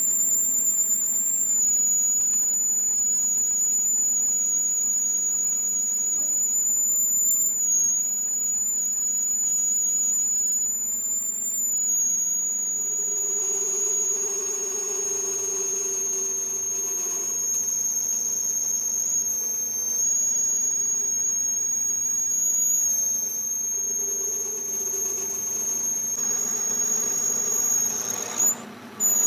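Metalworking machine tool cutting a steel shaft: a steady, high-pitched squeal over the machine's running noise. The pitch wavers slightly and steps up or down a few times, and there is a short break near the end.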